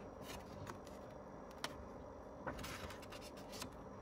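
Faint handling of a photobook's paper pages: a few light ticks and a brief rustle as a page is turned.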